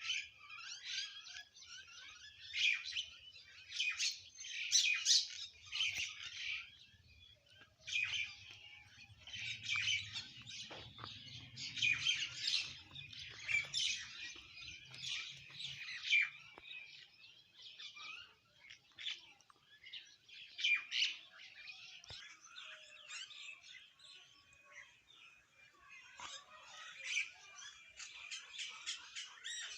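A group of small birds chirping and twittering without a break, many short overlapping calls with busier bursts every few seconds.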